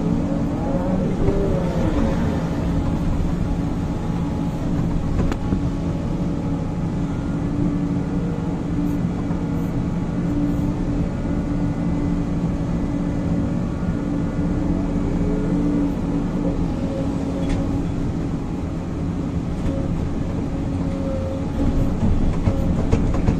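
Sumitomo 490 excavator's diesel engine running steadily, heard from inside the cab, with short rising and falling tones from the hydraulics as the machine works between the dig face and the truck.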